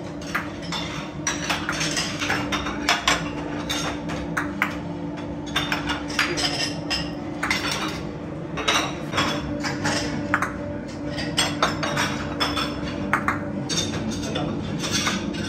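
Metal ladles knocking and scraping against a large kazan, and porcelain soup bowls and saucers clinking as they are filled and set out on a metal tray: frequent short clinks and clatter over a steady low hum.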